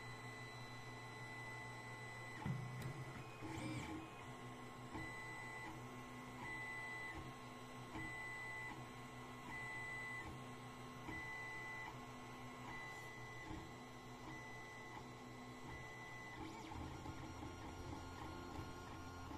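Creality Ender 3 3D printer laying down a first-layer test square. Its stepper motors whine in short, evenly repeated tones as the nozzle moves back and forth, over a steady hum, with a brief louder whir about two and a half seconds in.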